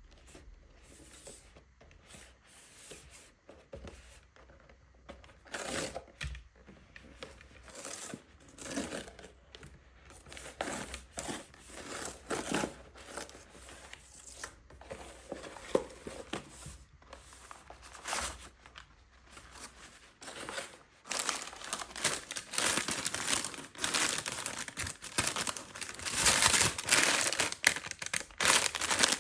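Happy Meal toy packaging crinkling and tearing as it is handled and torn open by hand, in irregular rustles that grow louder and busier in the last several seconds.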